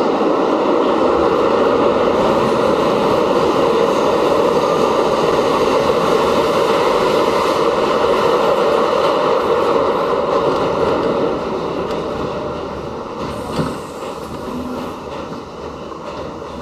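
Interior noise of an R68 subway car running through a tunnel: a loud, steady rumble and rush of wheels and motors. It eases off over the last few seconds as the train slows into a station, with one short knock near the end.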